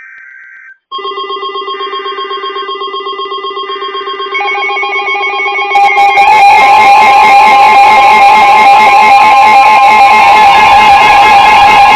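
Several NOAA weather alert radios sounding their alarms for an incoming tornado warning. A short beep comes first, then a rapidly pulsing alarm tone about a second in. Further alarms join at about four and six seconds, building in steps to a loud, harsh mix of steady tones.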